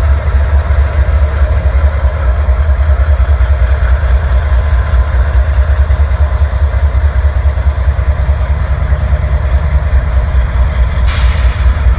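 GE diesel locomotives of a freight train running with a steady, heavy low rumble. A short hiss breaks in about eleven seconds in.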